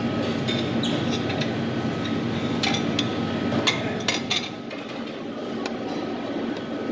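Serving utensils clinking and tapping against metal buffet pans and food boxes: a scatter of light, sharp clinks bunched around the middle, over the steady hum of a restaurant dining room.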